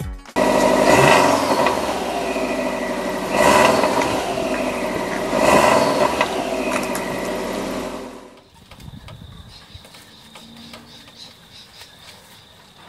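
Subaru WRX's turbocharged flat-four running through its stock exhaust, revved three times and falling back after each rev. About eight seconds in it gives way suddenly to a much quieter background.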